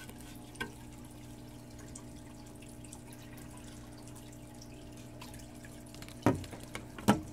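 Aquarium filter running: a steady hum with water trickling and dripping. A faint click just after the start, then two sharp knocks about six and seven seconds in.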